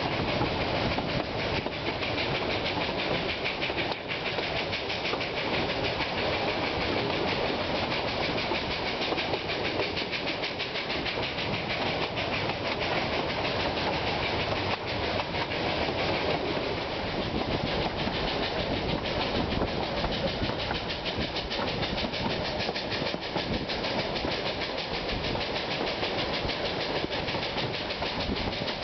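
Narrow-gauge steam train running, heard from aboard an open-sided carriage: a steady rumble and rapid clatter of the wheels on the track.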